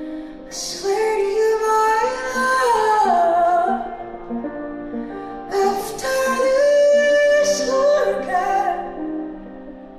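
Female singer's voice in a live performance, singing two long phrases of held, sliding notes over a soft instrumental accompaniment.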